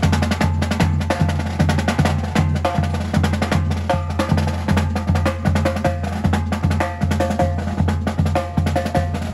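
Two double-headed drums of a Kittitian masquerade band, struck with sticks in a fast, even rhythm of about three beats a second, deep drum tones under sharp stick strikes.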